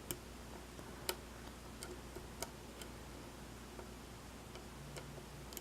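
Lock pick working the pins inside a pin-tumbler lock cylinder under tension: faint, sharp metal clicks at irregular intervals, about ten in all.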